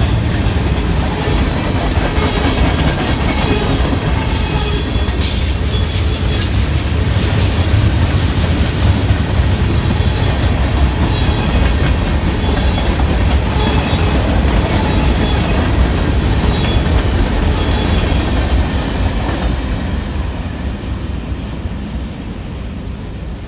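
Train cars rolling past with a steady heavy rumble and a few sharp clicks about five to six seconds in; the sound fades over the last few seconds as the train moves away.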